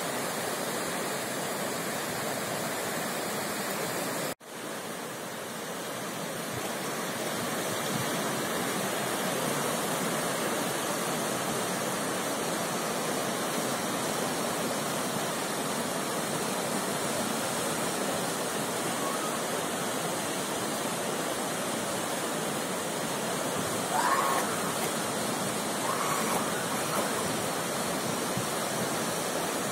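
The Guadalquivir river in flood, brown water rushing steadily past the bank. The sound drops out for a moment about four seconds in, then carries on.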